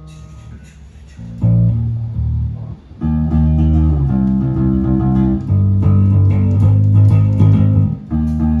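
Electric bass guitar playing a line of low held notes. It comes in about a second and a half in, stops briefly near three seconds, then runs on steadily.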